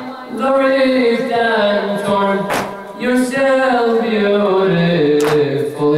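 A man chanting a noheh, a Shia mourning lament, unaccompanied: long held melodic lines that glide up and down, broken by a few short pauses.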